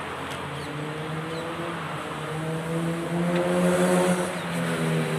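A motor vehicle's engine humming as it drives past on the road, growing louder to a peak about four seconds in and then easing off.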